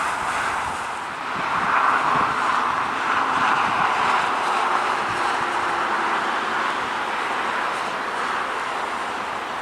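Boeing 777-200ER jet engines running as the airliner rolls out along the runway after landing: a steady rushing noise that swells about a second and a half in, then slowly eases.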